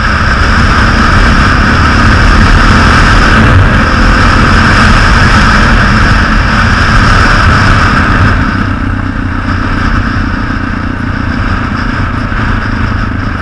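Yamaha XT600 supermoto's single-cylinder engine running while riding at road speed, mixed with wind rushing over the helmet camera. The sound gets somewhat quieter about eight seconds in.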